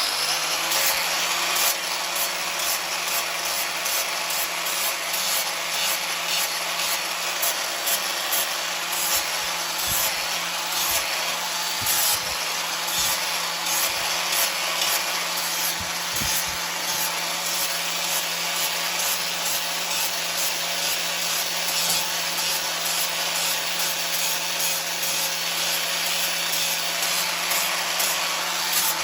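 Power grinder with a flap disc running under load, sanding the rough edge of an old steel spanner: a steady motor hum under a continuous grinding noise.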